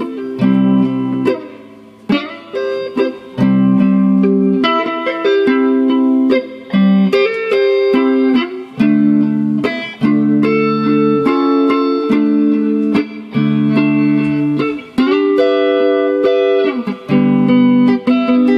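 Solid-body electric guitar played, a run of held chords and single notes that change about every second, with short breaks between some of them.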